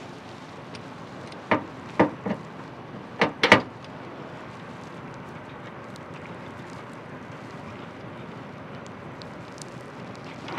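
About five sharp clunks and knocks in the first four seconds as a small fluid tank on a metal mounting bracket is worked into place against a truck's inner fender, the last one the loudest. After that there is only a steady low background hiss.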